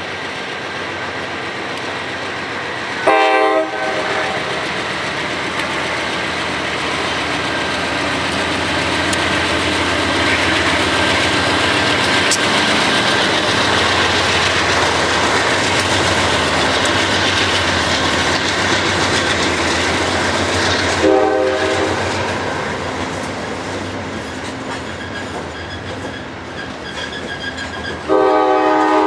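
CSX freight train passing close by: its locomotives and then its freight cars rolling over the rails. The lead locomotive's air horn sounds a short blast about three seconds in, another around twenty-one seconds in, and a long blast starting near the end.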